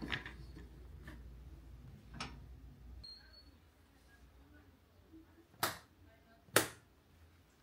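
Quiet room with a few faint taps and handling sounds, then two sharp clicks about a second apart near the end.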